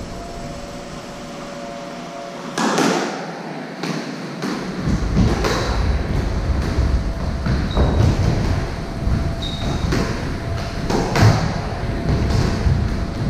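A squash rally: the rubber ball is struck by rackets and smacks off the court walls about once a second, each hit echoing in the enclosed court, starting a few seconds in. Short high squeaks of shoes on the wooden floor come in between.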